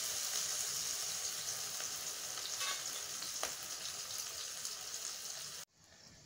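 Chopped onions sizzling in hot oil in a kadhai: a steady frying hiss that eases slowly, with a faint pop partway through. It cuts off suddenly near the end.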